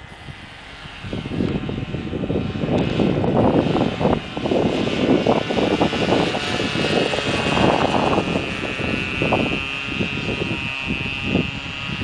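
Remote-control model airplane flying overhead, its motor and propeller making a high steady whine, with loud gusts of wind buffeting the microphone.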